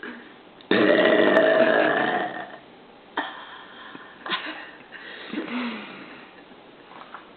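A woman's long, loud belch, starting just under a second in and lasting about two seconds before trailing off.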